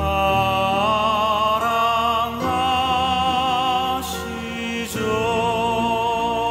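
Korean contemporary Christian worship song playing: long held notes with vibrato over a soft backing, moving to new notes about every two to three seconds.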